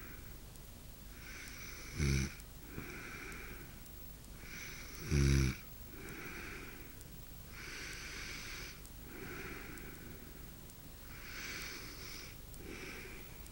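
A woman snoring in her sleep: two loud, rattling snores in the first half, with softer whistling, wheezy breaths in and out every second or so in between and after.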